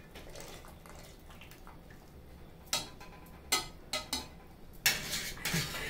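Serving spoon clinking and scraping against a cooking pot as parboiled rice is spread over the mutton curry layer: quiet at first, then about five short sharp knocks in the second half.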